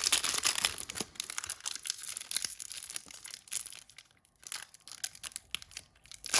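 The wrapper of an Upper Deck Series 1 hockey card pack being torn open and crinkled, densest in the first couple of seconds, then scattered crinkles with short pauses.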